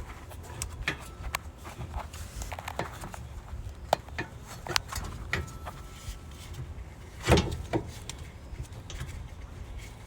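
Light metallic clicks and clinks from hand work on a brake caliper, as its 12 mm bolt is fitted and threaded in, with two louder knocks a little past seven seconds in.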